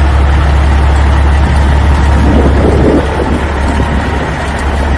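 Truck engine running with a steady low rumble, a little quieter from about three seconds in.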